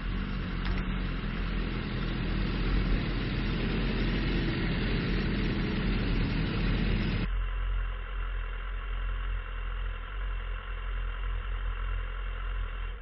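Sport motorcycle engine running at low speed, heard from an onboard camera with wind on the microphone. About seven seconds in, the sound changes abruptly to a duller, quieter engine-and-wind sound.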